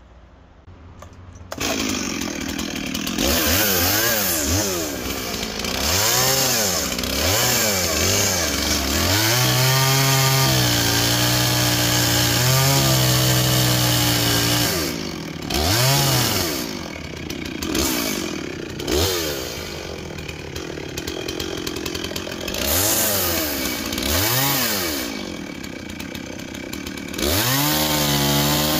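Gasoline chainsaws cutting into a wooden log, starting about a second and a half in. The engine revs up and down again and again as the saw bites, held at full throttle for several seconds in the middle.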